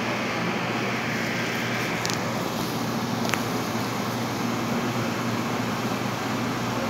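Steady fan hum with airy hiss, the constant background of ventilation or refrigeration fans in a shop, with two faint clicks about two and three seconds in.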